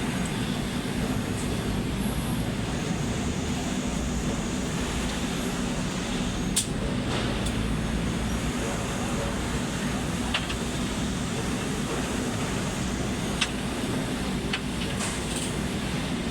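Steady low rumble of a vehicle or engine running, with a few sharp clicks.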